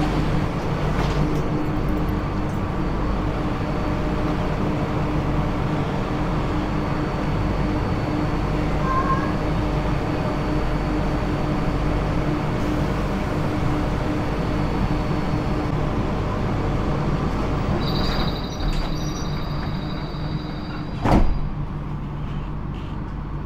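A vehicle running steadily: a low rumble and hum with a faint high whine. The whine changes pitch near the end, and a single sharp knock follows.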